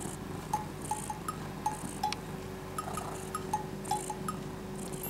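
Light background music made of short, high, bell-like plinks in an even bouncy rhythm, about two or three a second, over a faint steady low tone.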